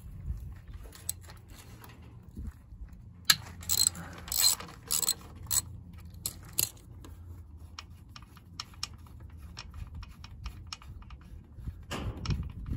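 Hand ratchet wrench with a socket and extension clicking in quick runs as a bolt under the vehicle's frame is turned, with a few louder clicks partway through.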